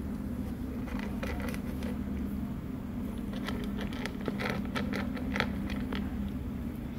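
A cat crunching dry kibble: irregular crisp crunches and clicks, thickest between about three and five and a half seconds in, over a steady low hum.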